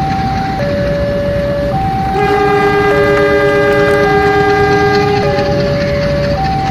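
Railway level-crossing warning alarm sounding a two-tone ding-dong, switching between a higher and a lower tone about once a second. From about two seconds in, a diesel locomotive horn sounds one held chord for about three seconds.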